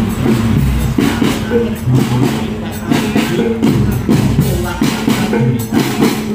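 Music of a traditional bregada soldier troupe: drums and other percussion playing a steady rhythm with pitched instruments over them.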